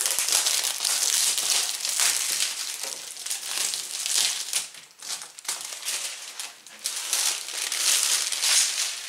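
Clear plastic shrink-wrap being torn and peeled off a hardcover book by hand, crinkling and crackling in repeated loud bursts.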